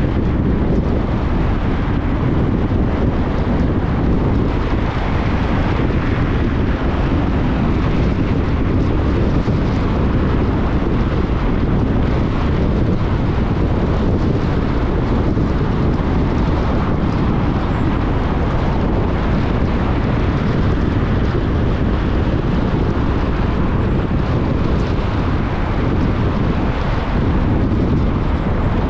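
Steady rush of wind and road noise from a car on the move, heaviest in the low end, with no change in level throughout.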